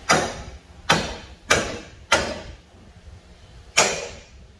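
Hammer blows on the steel front suspension of a Toyota Corolla, five sharp strikes, each ringing briefly. Four come in quick succession, then a pause, then one more near the end. The hammering is to knock loose a part that won't come out.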